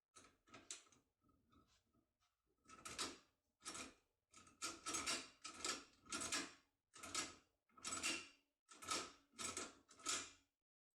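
A force key being worked in a Picard/Heracles a2p French lock cylinder, giving repeated short metallic scraping rattles. They are faint at first, then come about two a second from about three seconds in.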